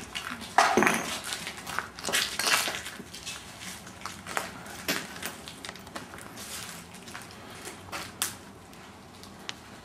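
Footsteps crunching and scraping on a gritty floor, with irregular clicks and knocks, loudest in the first few seconds and fading toward the end.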